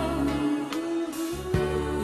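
Music: an instrumental stretch of a slow pop ballad, with sustained notes over a bass line and no singing.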